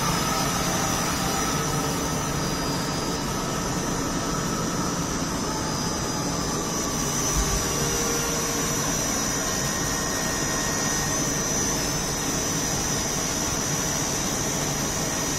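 Mori Seiki SL-65 CNC lathe running, its spindle turning the chuck and workpiece steadily at speed: a steady running noise with a high whine. The spindle motor is now driven by a replacement 380 V INVT inverter and is working normally after the repair.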